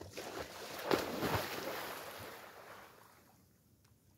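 A person wading quickly into shallow water and plunging in. The splashing is loudest about a second in and dies away over the next two seconds.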